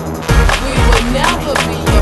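Pop music with a steady heavy beat, about two drum hits a second, under gliding synth or vocal lines.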